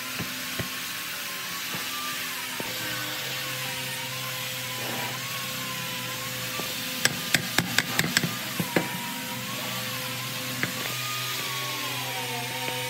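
A small power-tool motor running steadily, its pitch wavering up and down, with a quick run of about eight sharp taps or knocks around the middle.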